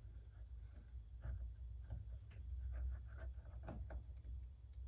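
Faint, scattered metal clicks and light scrapes of a 5/32 Allen key working the set screw in the centre of a 1966 Ford Mustang interior door handle.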